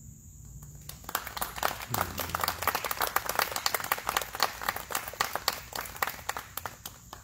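A small audience applauding: scattered hand claps start about a second in, grow dense, and thin out near the end.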